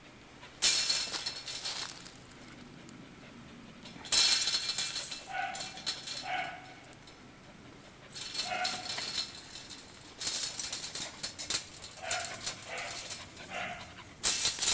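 Australian Shepherd puppy giving short, high whines and yelps, about seven brief calls. Between them come five loud noisy bursts of a second or two each.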